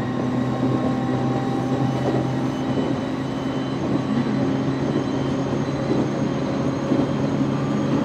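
JR East 701 series electric multiple unit running between stations, heard from inside the driving car: a steady rumble of wheels on rail with a continuous low hum. There are no sudden knocks or squeals.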